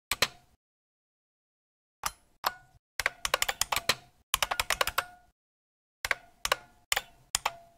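Typing on a computer keyboard: one keystroke at the start, then after a pause of over a second, quick runs of keystrokes, and slower, separate key presses near the end.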